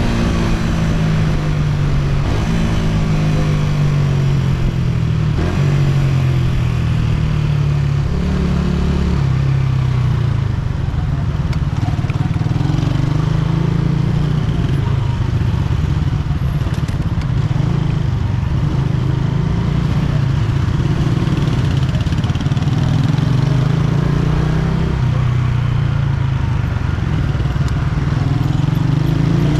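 Honda CG125's single-cylinder four-stroke engine running under way, its note shifting up and down in steps as the throttle and gears change, rising again near the end.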